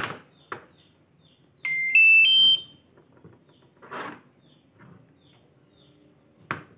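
LG single-tub washing machine's control panel sounding its electronic chime: three short rising beeps, loud. The board is powering up normally after its crystal was replaced, with no PE error. A few soft handling knocks come before and after.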